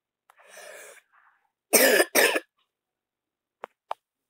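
A girl coughing twice in quick succession, followed by two short clicks near the end.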